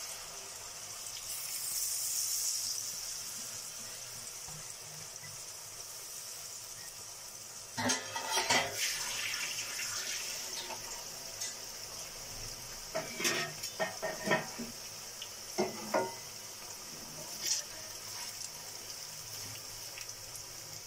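Flour-coated potato slices deep-frying in hot mustard oil in a kadhai: a steady sizzle that swells louder a second or two in as the fresh batch goes into the oil. From about eight seconds in, a spatula knocks and scrapes against the pan at irregular intervals as the chips are stirred.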